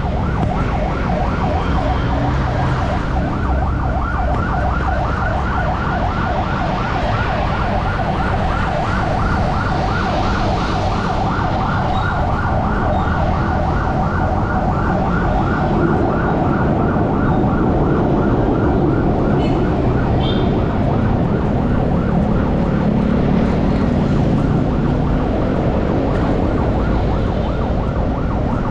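A vehicle siren sounds a fast, evenly repeating warble over the rumble of engines and traffic. The warble grows fainter in the second half.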